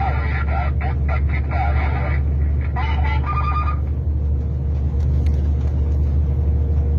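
Truck engine running with a steady low drone, heard from inside the cab. Muffled, tinny voices cut in and out during the first half.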